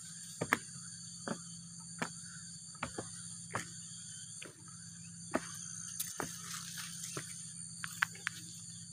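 Footsteps on a wooden plank footbridge and then on grassy ground, as short knocks at a walking pace of about one step every three-quarters of a second. Under them runs a steady high chorus of insects such as crickets.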